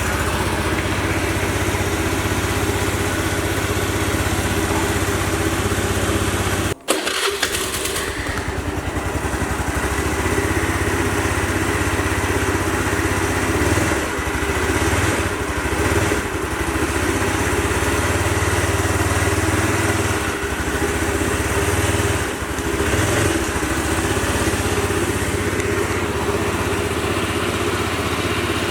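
Small motorbike engine idling steadily, with a brief cut about seven seconds in and a few slight swells in its note later on.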